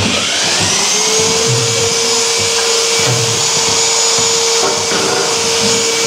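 An electric motor spinning up over about the first second, then running at a steady whine over a rushing noise.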